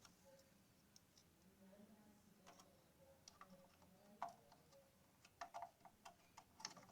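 Faint, scattered clicks and taps of a DDR memory module being handled and lined up against a motherboard DIMM slot and its plastic retaining clips, the loudest about four seconds in and a quick cluster near five and a half seconds.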